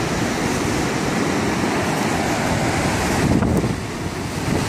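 Wind buffeting the microphone in a low, irregular rumble, over the steady wash of breaking surf.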